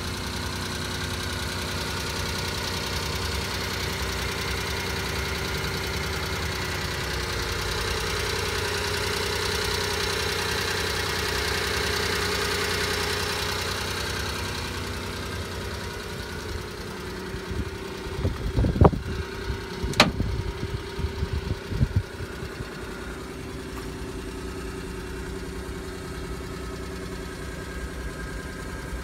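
Suzuki Carry DD51T kei truck's 660 cc three-cylinder engine idling steadily, heard close through the open engine hatch under the cab seat. A few sharp knocks come about two-thirds of the way in.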